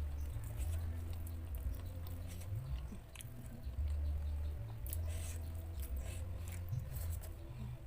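Close-miked chewing of raw leafy greens and rice, with wet mouth clicks and crunches and a low rumble underneath.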